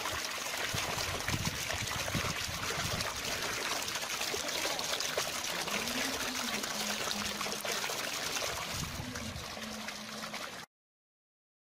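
Running water, like a trickling stream, as a steady rushing noise; it cuts off suddenly about a second before the end, leaving silence.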